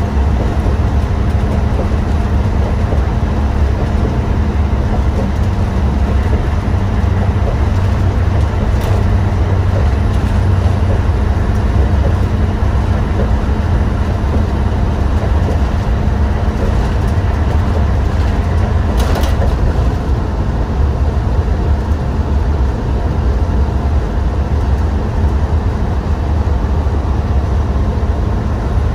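Cabin sound of a 2019 IC CE school bus with a Cummins ISB 6.7 inline-six diesel, cruising on the highway: a steady engine drone and hum under constant road noise, heard from the driver's seat. A single brief click comes about two-thirds of the way through.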